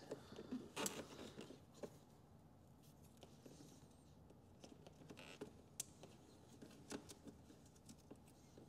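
Faint handling noises of a plastic zip tie and speaker wire against a motorcycle saddlebag lid. A cluster of small clicks and scratches comes in the first two seconds, then near silence with a few scattered ticks.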